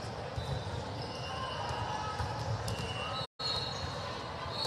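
Busy sports-hall ambience: many voices talking and balls bouncing on the courts, with a few short high squeaks. The sound cuts out completely for a split second about three seconds in.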